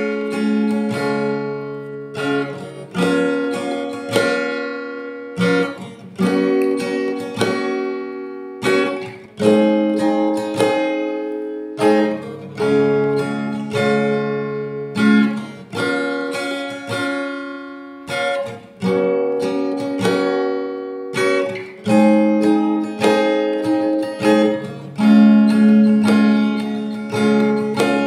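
Acoustic guitar strumming chords, struck about once a second, each chord ringing and fading before the next, with no singing.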